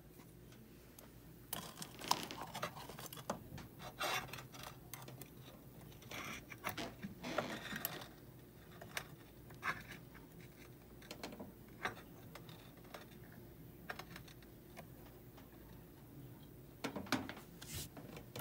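Scattered light clicks, taps and scrapes of metal and hand tools being handled at a jeweller's bench, as a hollow gold bangle is set in steel cross-locking tweezers on a soldering block, with a denser run of clicks near the end.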